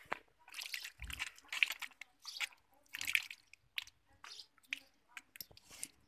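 Water from the open end of a garden hose splashing and spattering onto wet paving tiles, in uneven bursts as the hose is moved.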